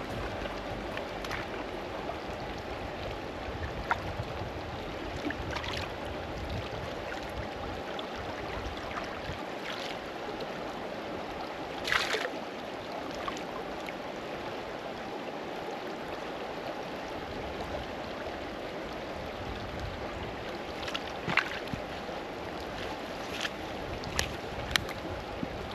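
Shallow stream running steadily, with scattered light knocks and splashes as a collapsible water bag is filled and handled. The loudest splash comes about twelve seconds in, and a few more short knocks follow near the end.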